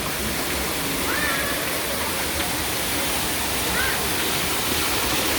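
Steady rushing of a waterfall, an even, unbroken roar of falling water, with a couple of brief faint voices in the background.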